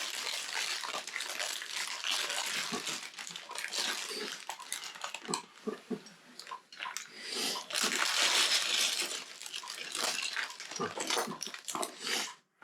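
A plastic Lego parts bag rustling and crinkling, with many small clicks of plastic bricks being handled and sorted; the rustling is loudest about two-thirds of the way through.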